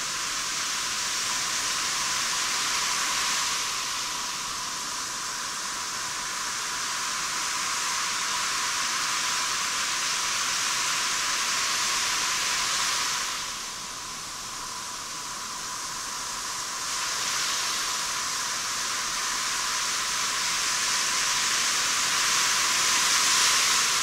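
Sea surf washing in the shallows at a beach, a steady hiss with almost no low end that swells and eases over several seconds, dipping for a few seconds in the middle.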